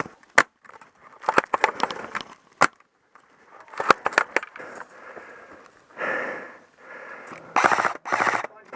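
Airsoft guns firing: quick clusters of sharp shots in the first half, then two dense rapid-fire bursts near the end.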